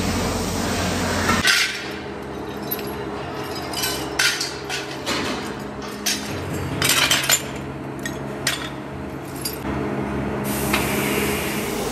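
Scrap metal parts clinking and clanking as they are tossed by hand into a metal pan, an irregular series of sharp metallic knocks.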